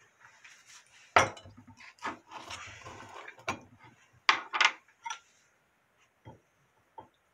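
Kitchenware handling: a glass jar knocked down on a wooden board, its lid scraped loose, and a steel spoon clinking against the glass and a ceramic bowl in a quick run of sharp clicks.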